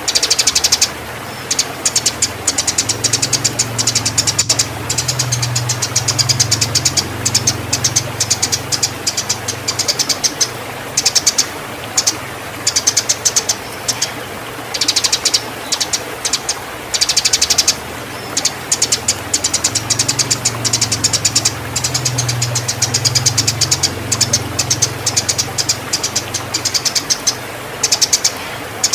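Eurasian tree sparrows chattering in long, fast trains of sharp, high chirps broken by short pauses: the excited calls of sparrows squabbling in breeding condition. A low, wavering hum runs underneath, swelling twice.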